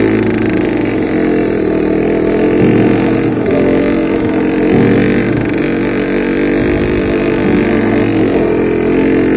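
ATV engine running under way, its pitch shifting up and down now and then with the throttle.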